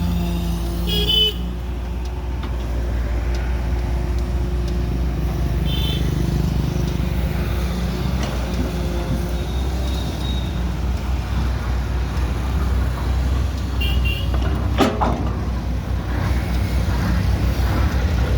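Excavator's diesel engine running steadily, with a few short high chirps and one sharp knock about fifteen seconds in.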